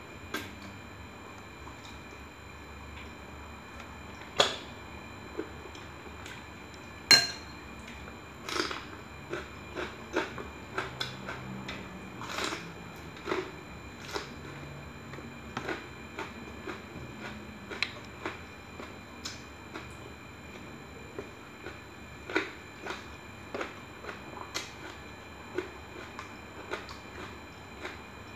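A person eating chicken with their fingers: irregular mouth and lip smacks and clicks while chewing and sucking the fingers, with two sharper snaps about four and seven seconds in.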